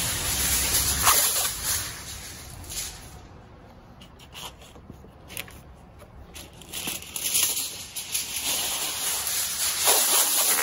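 Heavy-duty aluminium foil crinkling and rustling as it is wrapped tightly around a pork butt, louder at the start and again near the end, quieter in between.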